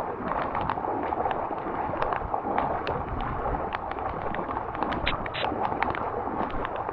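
Heavy rain falling steadily onto deep floodwater, a dense hiss of splashing drops with many sharp, irregular ticks of drops striking close by.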